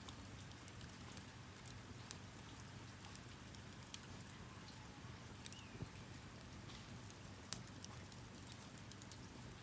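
Campfire crackling faintly: irregular sharp pops and snaps over a soft steady hiss, with one louder snap about three-quarters of the way through.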